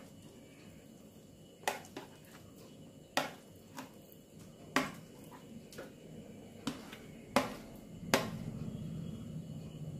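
Light, irregular knocks of a plate and spatula against a metal kadai as crumbled chhena is tipped and scraped into simmering milk, about nine taps in all. A low steady noise builds near the end.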